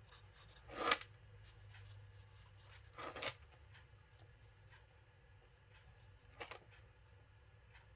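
Alcohol marker tip rubbing on small paper cut-outs as stamped leaves and flowers are coloured in: faint strokes, with short louder scratches about a second in, at three seconds and near six and a half seconds.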